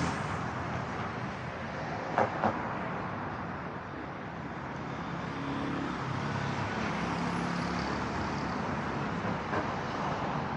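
City street traffic noise, with a motor vehicle's engine humming past around the middle. There are two short knocks a little over two seconds in.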